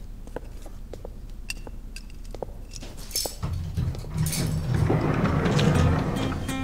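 Light clinks and ticks of a corkscrew working on a glass wine bottle, then about three seconds of louder scraping and rustling noise.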